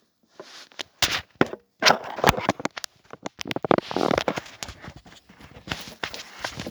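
A package being opened by hand: irregular crackling, rustling and tearing, with a string of sharp snaps and clicks.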